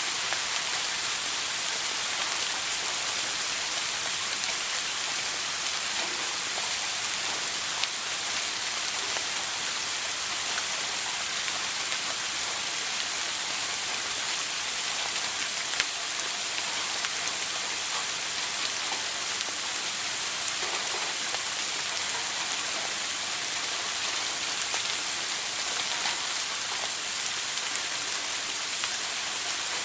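Shower water running steadily and splashing, an even hiss of falling water with fine droplet patter.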